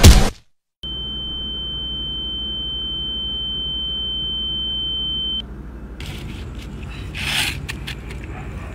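A sudden loud hit, a moment of dead silence, then a single steady high-pitched ringing tone lasting about four and a half seconds that cuts off abruptly: the film's ear-ringing effect for a stunned character. After it, a low steady rumble returns, with a brief noisy swell and a few faint clicks near the end.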